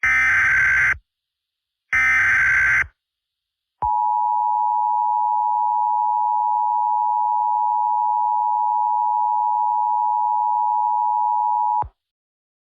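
Emergency Alert System tones opening an alert: the last two of the three SAME header data bursts, each a harsh warbling buzz of about a second with a second's gap between them, then the two-tone attention signal, a steady two-note tone held for about eight seconds that cuts off sharply.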